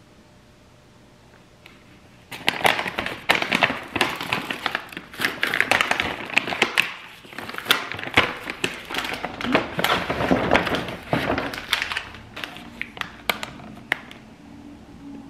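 Crinkling and rustling, like paper or plastic being handled, with many sharp taps and clicks. It starts about two seconds in and thins out near the end to a few scattered clicks.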